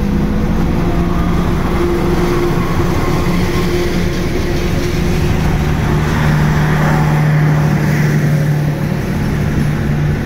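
CC206 diesel-electric locomotive passing close by under power as the train departs, its engine running, followed by the passenger coaches rolling past on the rails with a steady, continuous din.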